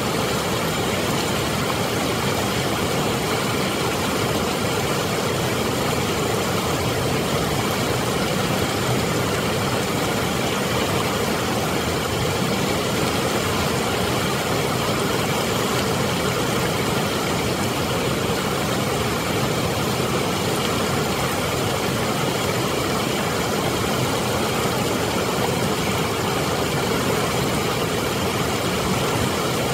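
Steady, unbroken rush of water pouring out of a dam's spillway gates and churning through the rapids and rocks below it.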